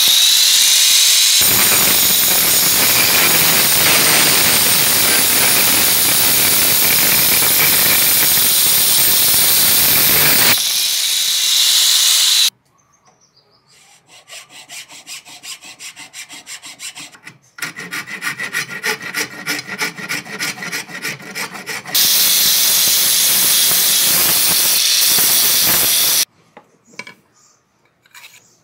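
A small power tool running steadily against a wooden hammer handle for about twelve seconds, then a flat hand file rasping over the wood in quick repeated strokes, then the power tool again for about four seconds before it stops.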